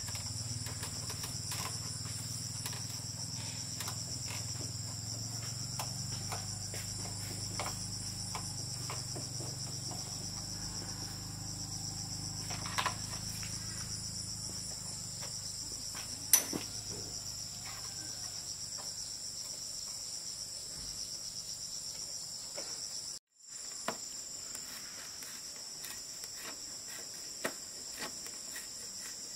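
Insects chirring steadily in a high, even drone, with scattered sharp clicks and knocks and a low hum underneath that fades away in the second half. The sound drops out for a moment about three-quarters of the way through.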